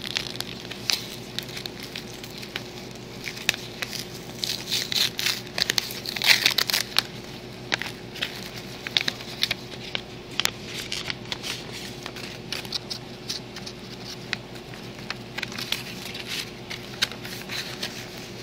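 Hands opening a paper envelope and handling plastic packaging: irregular crinkling and rustling, busiest and loudest around six to seven seconds in.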